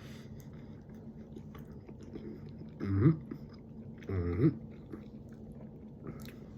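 A man chewing a mouthful of convenience-store egg sandwich, with soft wet mouth clicks. Two short hummed murmurs rise in pitch about three and four seconds in.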